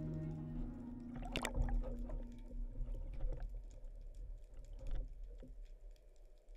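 Water sloshing and bubbling heard through an underwater camera housing, with scattered sharp clicks and knocks, the loudest about a second and a half in.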